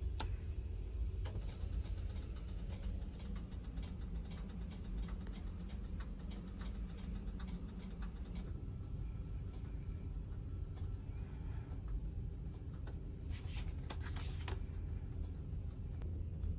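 Steady low rumble of the Caledonian Sleeper train heard inside a sleeper cabin, with a run of faint ticks and rattles in the first half and a brief rustle about 13 seconds in.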